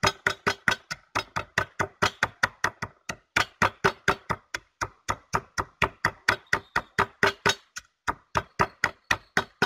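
Wooden pestle pounding roasted mắc khén (prickly ash) seeds in a small bowl: a steady run of dry knocks, about four or five a second, with a short break near the end.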